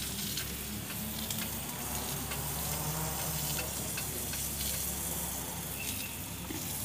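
Food frying in a pan on a portable cassette gas stove: a steady sizzle with scattered small crackles.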